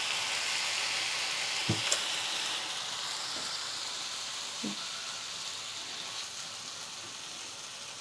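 Cauliflower-stalk and potato sabzi, cooked down dry, sizzling in a nonstick kadhai while a wooden spatula stirs it, with a couple of light spatula knocks about two seconds in. The sizzle slowly fades.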